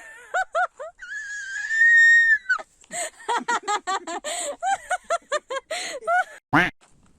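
People's voices making non-speech sounds: a long high-pitched squeal about a second in, then a rapid run of short, laughter-like syllables, with a single sharp knock near the end.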